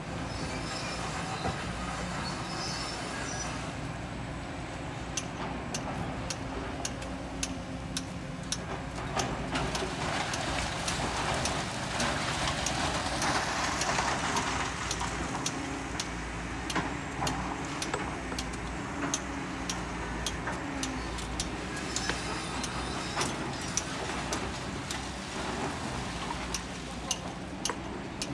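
Excavator's diesel engine running steadily while sand and stones pour from its bucket through a metal screen into a dump truck's bed. The pouring hiss swells in the middle, and stones clink and knock on metal throughout.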